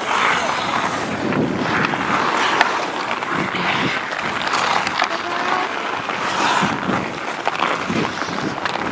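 Ice skate blades scraping and carving across outdoor pond ice during a hockey game, a steady hiss broken by short scrapes, with a sharp knock about two and a half seconds in.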